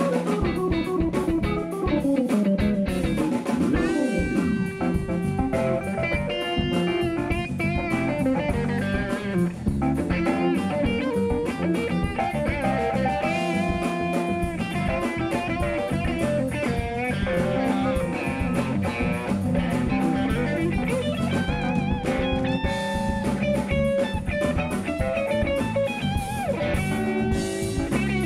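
Live band playing instrumental music on electric guitar, electric bass, drum kit and keyboard.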